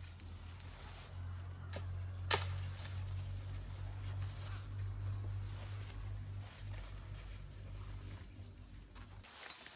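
Steady high-pitched insect buzz over a low hum, with a few scattered clicks and one sharp click about two seconds in; the hum drops away near the end.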